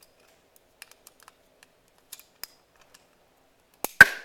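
Plastic toy food-fight launcher being handled and fired: a few faint clicks, then a sharp double plastic snap near the end.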